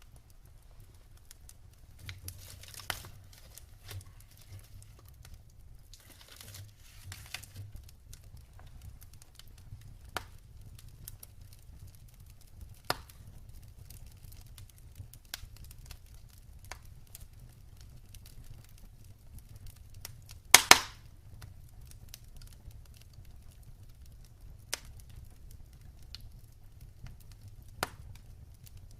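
Wood fire crackling in a fireplace: scattered sharp pops and snaps over a low, steady rumble, with a loud cluster of pops about two-thirds of the way through.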